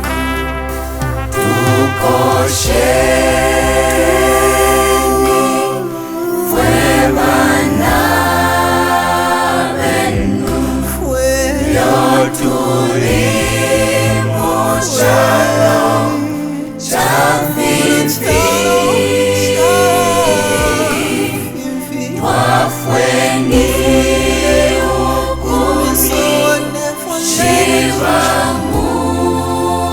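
Gospel choir singing over sustained low bass notes.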